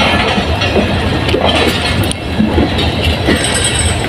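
Pakistan Railways passenger coaches rolling past at close range: a steady rumble of wheels on rail, with now and then a knock as wheels cross the rail joints.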